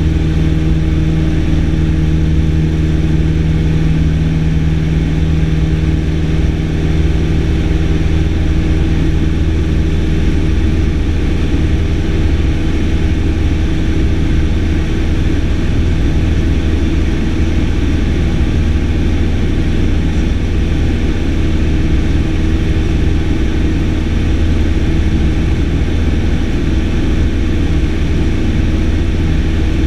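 Single-engine light airplane's piston engine and propeller droning steadily in flight, heard from inside the cockpit.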